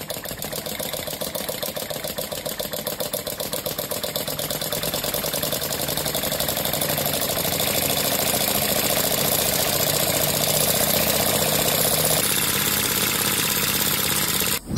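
Tabletop model Stirling hot-air engine, heated by an alcohol lamp and driving a toy helicopter rotor, running with a fast, even mechanical clatter. It gets louder over the first half as it picks up, then runs steadily.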